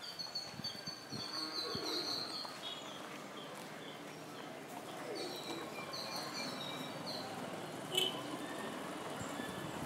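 Birds chirping in runs of short, high notes, one run in the first two seconds or so and another about five seconds in, over steady outdoor background noise. A single sharp click about eight seconds in.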